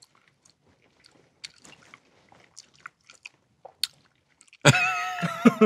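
A person chewing a mouthful of hot wing: faint wet smacking and small clicks of the mouth. Near the end a loud musical sting with held tones cuts in.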